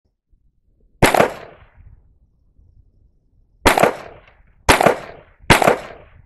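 Four unsuppressed shots from a Ruger SR22 .22 LR semi-automatic pistol: one shot, a pause of nearly three seconds, then three more about a second apart. Each crack trails off in a short echo.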